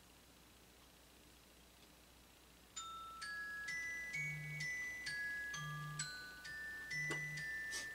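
Near silence, then about three seconds in a light chiming melody begins: ringing, glockenspiel-like notes, about two a second, over a soft, regular low pulse.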